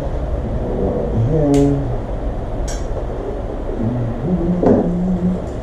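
A few sharp clicks and clinks of hands working at the motorcycle's wiring connectors while unplugging a brake light bar, over a steady low background hum, with a man briefly murmuring twice.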